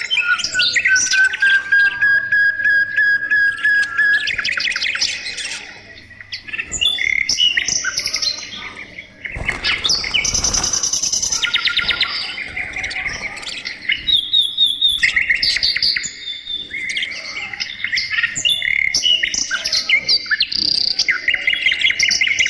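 A group of budgerigars chirping and warbling continuously, with one long steady whistle over the first few seconds and a harsh, noisy burst lasting about two seconds near the middle.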